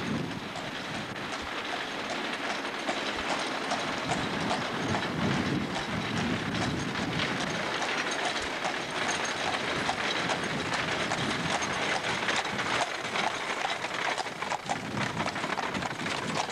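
Horse-drawn carriage on a paved street: a horse's hooves clopping and the carriage wheels rolling and rattling, many small clicks over a steady noisy rush.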